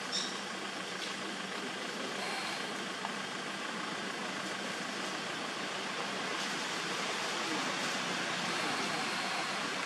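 Steady background hiss, with a short high chirp about a quarter second in.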